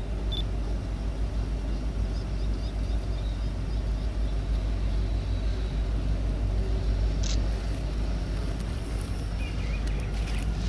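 Steady low rumble of an approaching freight train's diesel locomotives, led by Kansas City Southern EMD SD70ACE units, heard from a distance.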